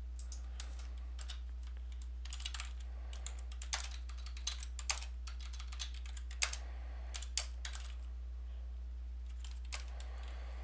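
Typing on a computer keyboard: a run of irregular keystroke clicks, with a brief pause in the second half, over a steady low hum.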